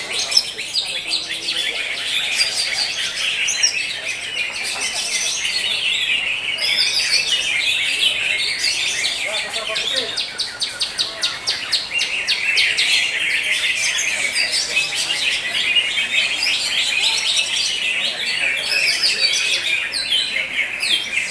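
Cucak hijau (greater green leafbirds) singing in competition, many birds at once: a dense, unbroken chatter of high chirps, whistles and fast trills. A run of rapid trilling comes about a third of the way in.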